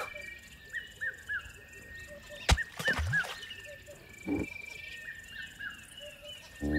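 Savannah nature ambience: a bird calling over and over in short arched chirps over a faint insect background. A sharp click about two and a half seconds in is the loudest sound, and a few short low sounds follow later.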